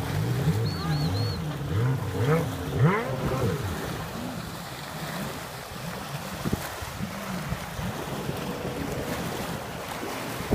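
Jet ski engine running offshore, its pitch rising and falling as it revs for the first few seconds, then quieter. Wind on the microphone and small waves lapping at the shore.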